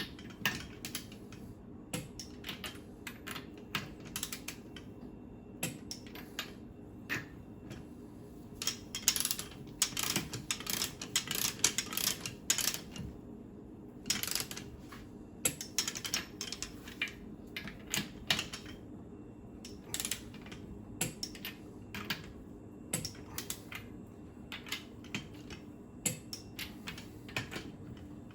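Socket ratchet clicking in quick runs of sharp ticks as the stern drive's mounting nuts are run down and torqued to 50 foot-pounds.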